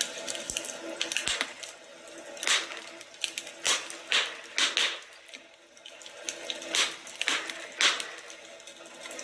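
Wood fire in a fireplace crackling, with irregular sharp pops every second or so over a soft hiss.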